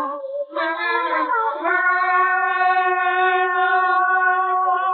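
Nursery-rhyme singing without words: a voice sings a few short notes, then holds one long note that wavers slightly near the end.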